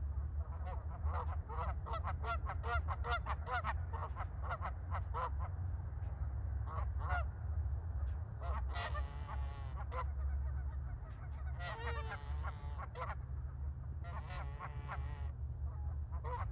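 Canada geese honking: a quick run of short honks, about three a second, for the first few seconds, then longer, wavering calls in several bouts, over a steady low rumble.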